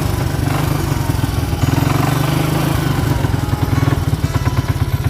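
Four-wheeler (quad bike) engine running at low speed, with a steady, fast chug that smooths out for about a second in the middle.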